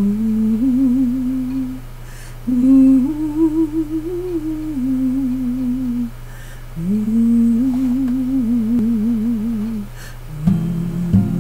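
A woman humming a slow, wordless melody in three long phrases with a wavering vibrato; about ten seconds in, an acoustic guitar starts strumming.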